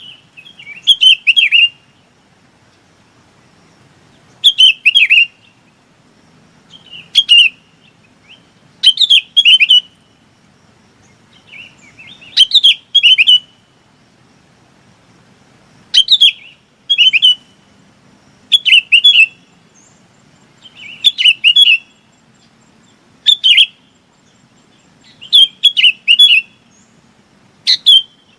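Bông lau bulbul calling the flock: short, bubbly phrases of a few quick notes, repeated loudly about every two seconds.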